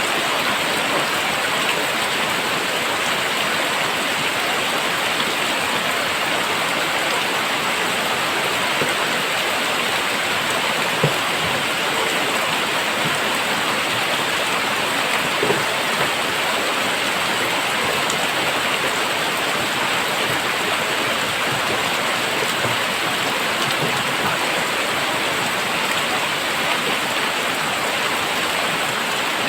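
Very heavy rain falling steadily, a dense even hiss of rain on surfaces, with two sharper taps about a third of the way in and around halfway.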